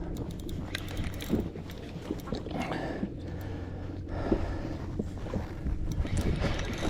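Steady low wind rumble on the microphone with the wash of water around a jet ski, and a few scattered knocks.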